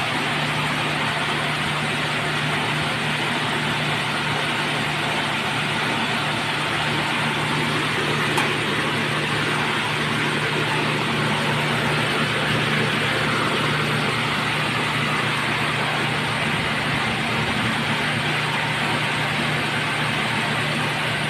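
Shin Nong rice milling machine running steadily, a constant low hum under an even rushing noise.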